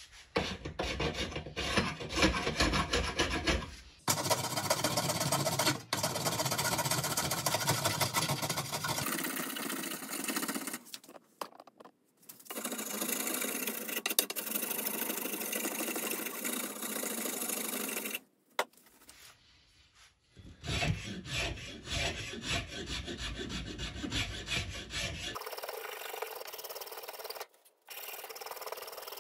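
Flat hand file rasping back and forth over wooden knife-handle scales held in a vise, in quick repeated strokes, shaping the handle. The filing stops and starts again several times.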